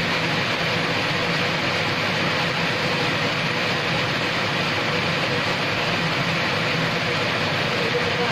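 Steady rain falling on brick paving and garden plants, an even hiss that neither swells nor fades.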